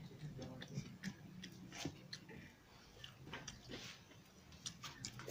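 Close-up eating by hand: chewing and lip smacks, with scattered soft clicks as fingers mix rice and dip into a steel bowl of chicken curry.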